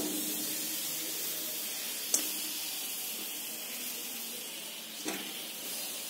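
Pieces of jaggery dropped by hand into an iron kadhai, three light knocks a couple of seconds apart over a steady hiss.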